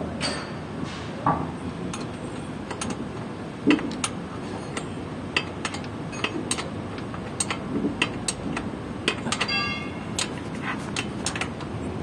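Irregular sharp clicks and light metallic knocks over a steady background noise, with a short pitched sound a little after the middle.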